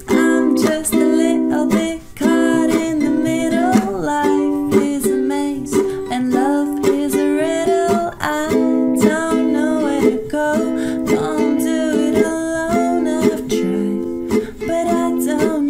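A woman singing a pop song to her own strummed ukulele accompaniment, the strums keeping a steady beat under the voice.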